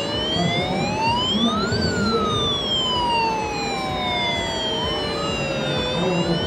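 Scale model fire car's electronic wail siren, from its sound module, sounding a slow cycle. It rises for about two seconds, falls slowly for about four, and starts rising again near the end, with a second, fainter siren tone rising alongside it in the last couple of seconds.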